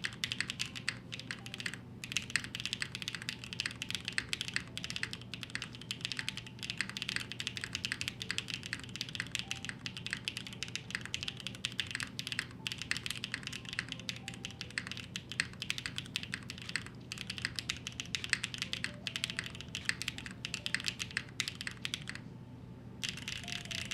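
Continuous fast typing on a Neo75 Cu mechanical keyboard with BCP-style linear switches: a dense run of keystrokes, with a brief pause about 22 seconds in.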